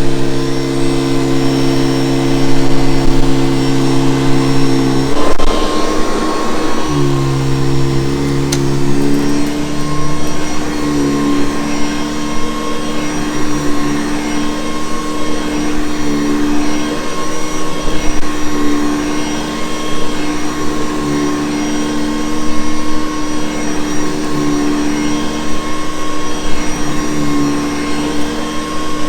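Vintage Hoover Convertible U4387 upright vacuum cleaner running with a steady motor and fan hum. About five seconds in, the hum briefly gives way to a rushing air sound for a second or two, then the hum returns and carries on.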